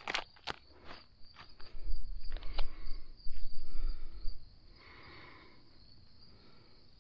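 Crickets chirring steadily in a cornfield. Near the start a few sharp rips as a green corn husk is torn off the ear. About two seconds in, a low rumble lasts a couple of seconds and is the loudest sound. Light rustling follows as silks are picked off the husked ear.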